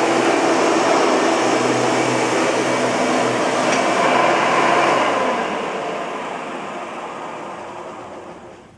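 1997 Hoover TurboPower 4000 Elite upright vacuum cleaner running at full speed, then switched off about five seconds in, its motor winding down with a falling hum and fading out over the next few seconds.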